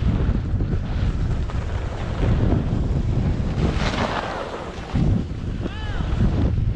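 Wind buffeting the microphone of a camera moving down a ski run, with the hiss of skis or a snowboard sliding and scraping over snow, which swells about four seconds in.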